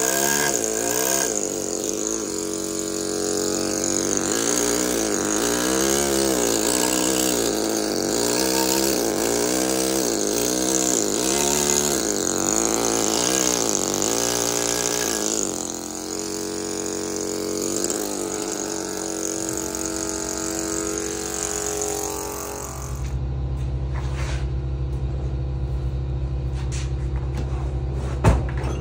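Pneumatic carving hammer running steadily with air hiss, driving a chisel into marble; it stops about 23 seconds in. After that a steady low machine hum remains, with a sharp click near the end.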